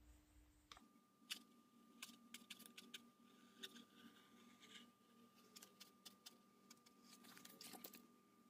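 Faint, irregular clicks and scrapes of a utility knife blade cutting and trimming a black edging strip along a prop baton, over a faint steady hum.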